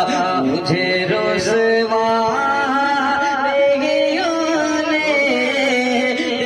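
A naat, an Islamic devotional song, sung with a continuous, ornamented melody whose pitch bends and wavers.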